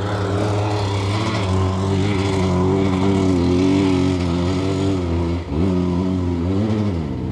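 Dirt bike engine running at a steady, fairly high speed, its pitch wavering slightly, dipping briefly about five and a half seconds in and sagging again near the end.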